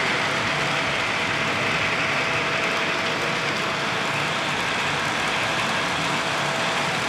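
O-gauge model trains rolling on three-rail track: a steady rolling hiss with a faint steady hum underneath.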